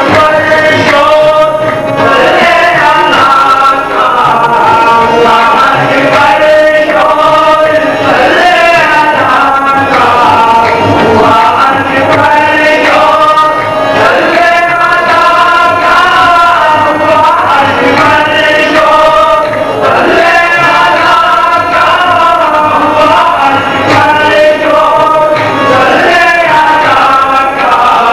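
Music with a singing voice over instrumental accompaniment, loud and continuous.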